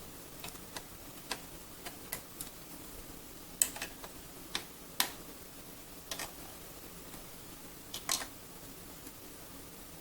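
Pliers working the handlebar stem bolt on a kids' bike as it is tightened: scattered sharp metal clicks and ticks at an irregular pace, the loudest about three and a half, five and eight seconds in.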